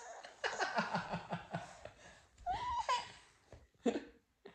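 A toddler laughing hard: a run of quick belly-laugh bursts, a higher squealing laugh around the middle, and a couple of short laughs near the end.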